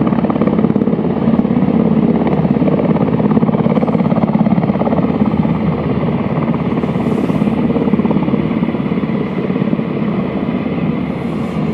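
U.S. Coast Guard helicopter hovering low over the water: a steady, rapid chop of rotor blades over the turbine's drone, easing slightly near the end.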